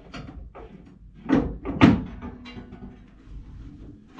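Tools knocking and clanking against the fittings on top of a water heater as its anode rod is worked at, with two loud knocks about half a second apart in the middle.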